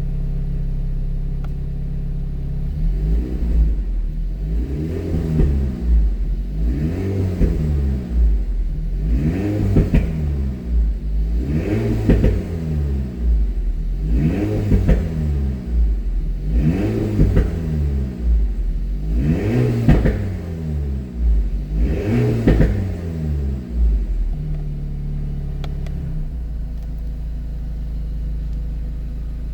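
Alpine A110 with a stock exhaust, its 1.8-litre turbocharged four-cylinder engine idling, then revved about eight times in a row, each rev rising and dropping back in pitch roughly every two and a half seconds, before settling back to idle near the end.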